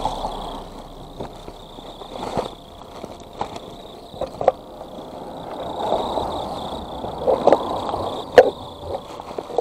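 Handling noise from a camera worn or set down close to a person moving about: rustling swells and a scatter of sharp clicks and knocks, the sharpest about eight seconds in.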